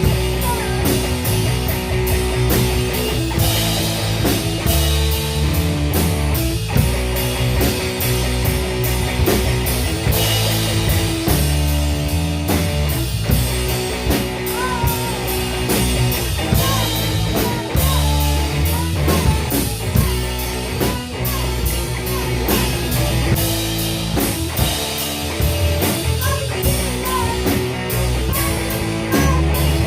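Rock song played by a band: drum kit keeping a steady beat under bass and guitar, with short gliding notes in the middle part.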